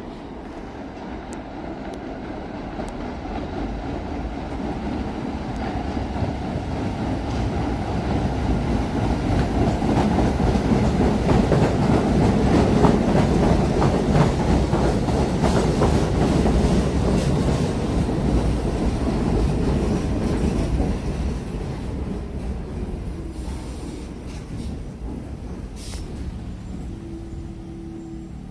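An R44 subway train pulling into the station: the rumble and clatter of its wheels on the rails grow louder as it runs along the platform, then die away as it slows to a stop, with a short squeal near the end.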